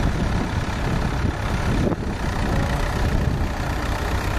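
David Brown 990 tractor's four-cylinder diesel engine running steadily.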